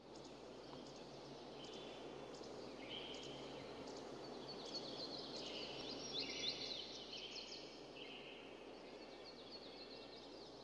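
Outdoor ambience: a faint, steady background hiss fading in, with several birds chirping and calling on top, the calls busiest about halfway through.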